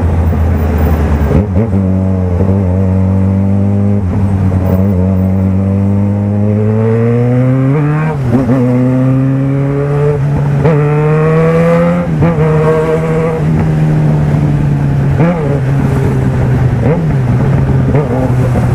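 Yamaha XJ6 motorcycle's inline-four with an aftermarket Power exhaust, heard from the rider's seat while riding. The engine note rises slowly as the bike accelerates, dips briefly about eight and twelve seconds in, then holds fairly steady with a few short throttle dips.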